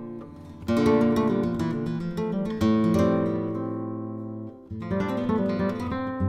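1983 Conde Hermanos flamenco guitar, a cypress-bodied blanca, played solo: a chord is struck, a short run of notes follows, then a chord is left to ring and fade before playing picks up again near the end.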